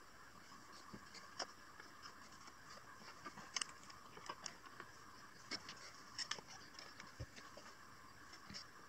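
Faint handling noise of gluing work: scattered small clicks, taps and scrapes as spring clamps and a wood glue bottle are picked up and set against plywood pieces, over a steady faint hiss.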